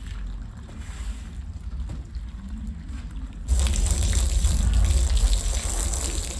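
Water spraying hard, starting suddenly a little past halfway through over a low steady rumble.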